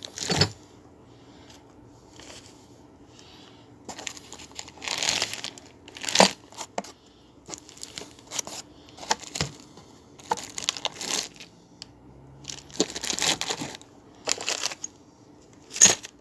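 Plastic wrapping on the steel parts of a clamping kit crinkling in short, irregular bursts as the parts are handled in their wooden box, with a few sharp clicks.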